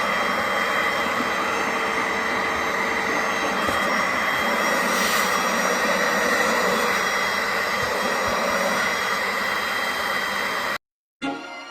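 Steady whine of a cleaning machine's vacuum motor, such as a vacuum cleaner or upholstery extractor, running at constant speed while the couch is cleaned. It cuts off suddenly near the end, and music starts.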